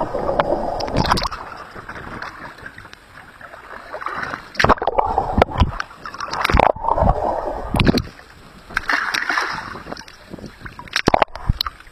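Seawater sloshing and gurgling around a camera that goes under the surface and comes back up, in uneven surges with several sharp splashes.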